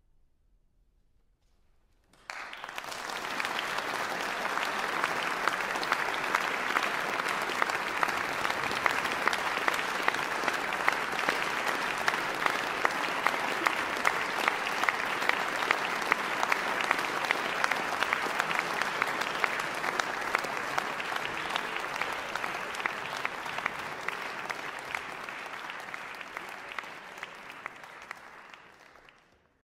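An audience applauding: about two seconds of near silence, then sustained clapping from a large crowd that fades out near the end.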